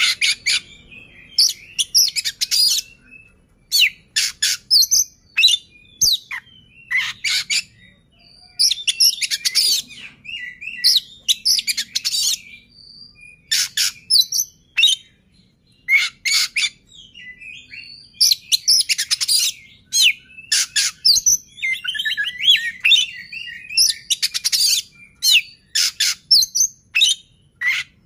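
Male Oriental magpie-robin singing: loud bursts of rapid, varied high notes and whistles, broken by short pauses, with a denser chattering passage past the middle.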